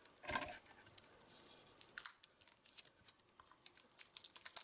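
Packaging being handled: a knock about a third of a second in, then plastic wrapping crinkling and crackling in quick short bursts, growing busier toward the end.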